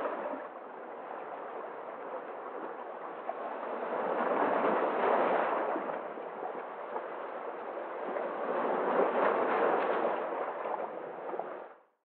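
Small sea waves breaking and washing over rocks, the surf swelling twice and ebbing between, fading out near the end.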